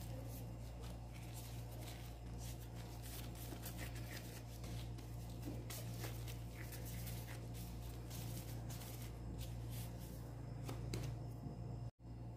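Soft rustling and crinkling of thin plastic food gloves as hands shape dough balls, a stream of small irregular clicks over a steady low hum.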